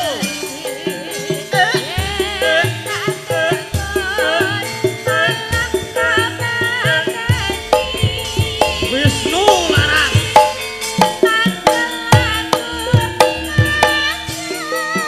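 Javanese gamelan music, with ringing metallophone notes, regular low drum strokes and a wavering sung melody from a female singer (sinden).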